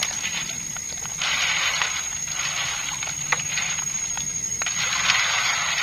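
Freshwater mussels and small clams being washed by hand: shells scraping and clinking together with water sloshing in swells, and several sharp clicks of shell on shell.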